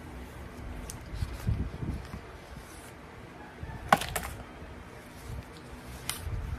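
Hands handling a cardboard phone box and its paper seal strip: low rubbing and bumps, then a sharp double click about four seconds in and another click near the end as the lid is worked open.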